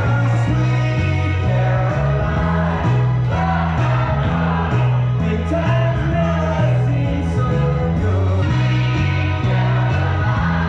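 Music with singing over a repeating bass line.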